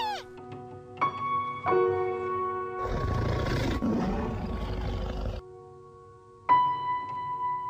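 A lion roars for about two and a half seconds, starting about three seconds in, over background music of held notes.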